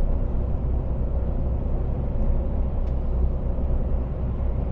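Steady low drone of a lorry's diesel engine and road noise, heard inside the cab while driving.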